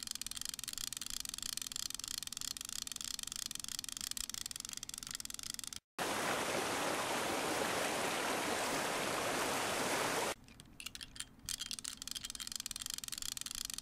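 Steady rushing noise like running water. About six seconds in it cuts out for a moment, then comes back louder and fuller for about four seconds before falling back to a thinner hiss.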